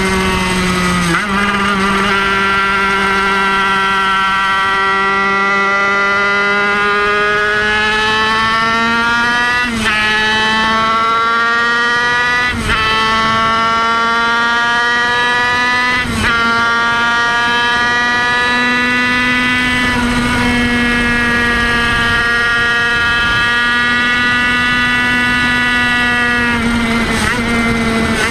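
Kreidler Van Veen 50cc two-stroke single-cylinder racing engine at high revs, held at a high steady note that drifts slowly up and down, with brief breaks in the note about five times.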